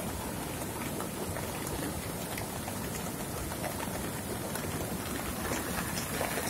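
Heavy rain falling steadily, with scattered sharp drop ticks, over the rush of muddy floodwater.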